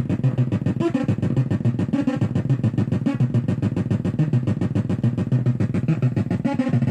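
Modular synthesizer sine-wave sequence played through a breadboarded op-amp Big Muff-style fuzz circuit: a fast, even stream of short, low, buzzy notes.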